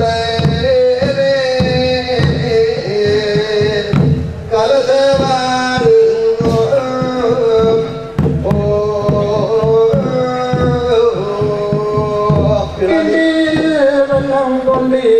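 Ritual singing in long held, gliding notes, sung over a microphone, accompanied by steady chenda drumming.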